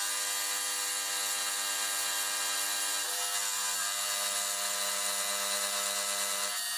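Sieg X2.7L benchtop milling machine running an end mill into the side of a steel block under flood coolant. It makes a steady hiss of cutting and coolant, with the spindle motor's even whine underneath.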